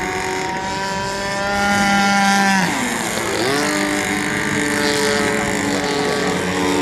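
Radio-controlled model aircraft motor running with a steady pitch that grows louder, then drops sharply in pitch about two and a half seconds in and settles to a steady tone again.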